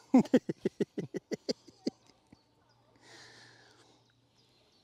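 A man laughing: a quick run of about a dozen short 'ha' pulses that slow down and fade out over about two seconds. About three seconds in comes a short, soft rustle.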